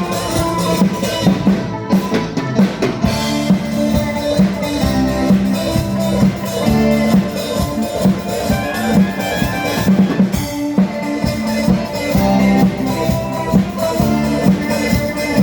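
Loud music with a steady drum-kit beat under sustained melodic instruments, played through a sound system being tested.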